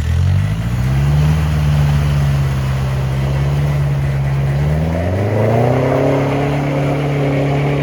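Engine of an off-road 4x4 revving up, holding steady, then revving higher about five seconds in and holding there.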